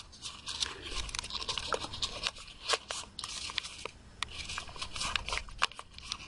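Folded paper crackling and rustling in the hands as it is pressed and tucked into an inside reverse fold, with many small crisp snaps scattered through.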